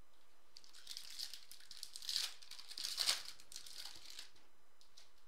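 Foil wrapper of a Topps Chrome football card pack crinkling and tearing as it is ripped open by hand, loudest about two and three seconds in.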